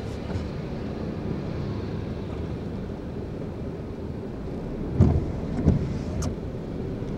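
Steady low engine and road noise of a car being driven, heard from inside the cabin, with two short thumps about five seconds in.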